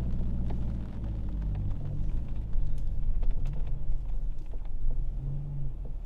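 A car engine running at low speed in first gear, heard from inside the cabin as a steady low rumble while the car creeps forward.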